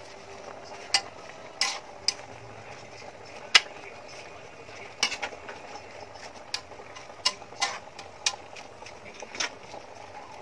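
Metal spatula knocking and scraping against a large aluminium pan while stirring a panful of bok choy leaves. About a dozen sharp clinks come at uneven intervals over a steady faint hiss.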